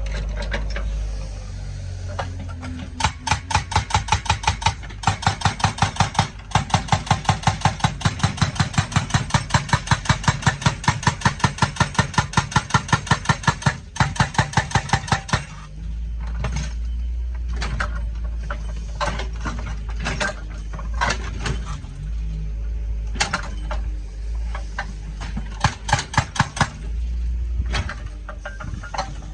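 Excavator-mounted hydraulic breaker hammering in a fast, even run of blows for about twelve seconds, then stopping. After that, the excavator's engine runs steadily, broken by a few short bursts of blows.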